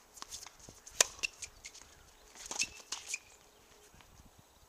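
Tennis balls struck by rackets and bouncing on a hard court: a sharp pop about a second in and a run of quicker knocks around two and a half to three seconds, with a few short high squeaks.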